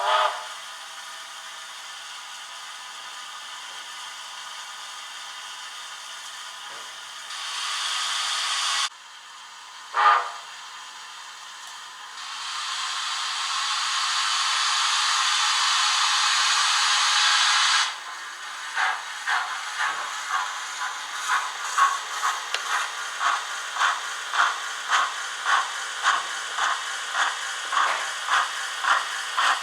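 Recorded steam-locomotive sounds from the DCC sound decoder of an Ixion J class model locomotive: a whistle ends, then a steady steam hiss, a short whistle toot about ten seconds in, and a louder hiss that stops suddenly. Then the exhaust chuffs start up, about two a second, as the model pulls away.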